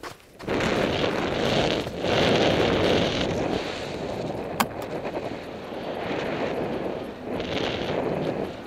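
Wind rushing over the camera microphone of a paraglider in flight, coming in strongly about half a second in and surging and easing in gusts. One sharp click about halfway through.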